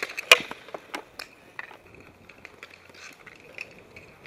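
Hockey sticks and ball clacking on asphalt in a street hockey game: one sharp clack about a third of a second in, then scattered lighter clicks and taps.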